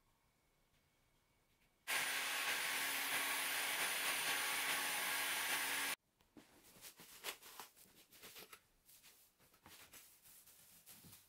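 A small electric blower runs for about four seconds, a steady hiss over a low hum, switching on and off abruptly. After it stops, a plastic bag rustles with a few light clicks.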